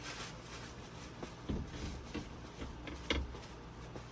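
A few soft knocks and thuds of things being handled in a small kitchen, the loudest about three seconds in.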